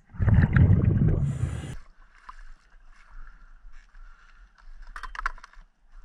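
A diver's exhaled air bubbling underwater: a loud rush of bubbles in the first two seconds, then a faint underwater hiss with a few clicks near the end.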